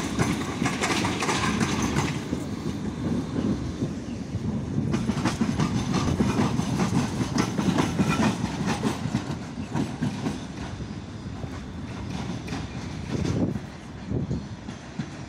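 PESA tram rolling over the points and rail joints: a steady rumble with clacking wheels that fades as the tram moves away. There is a brief louder clank about thirteen seconds in.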